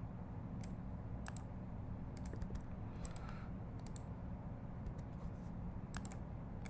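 Light clicks of a computer mouse and keyboard, a few at a time at irregular intervals, over a faint low hum.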